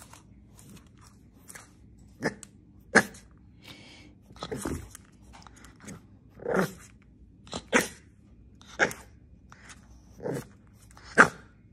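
French bulldog puppy giving short, sharp barks, about eight of them at irregular gaps of roughly a second.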